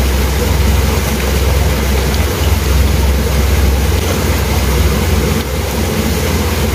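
Steady rush of creek water flowing close by, loud and even, with a deep rumble underneath.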